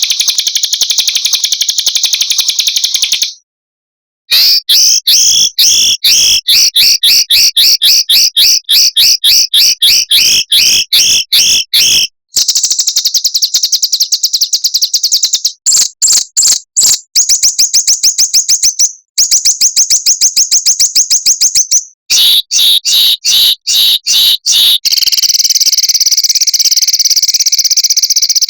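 Small songbirds' fast high trills and rapid strings of repeated sharp notes, spliced together as a masteran training compilation: one clip after another, each cut off abruptly by a short silence. It ends in a continuous buzzy trill.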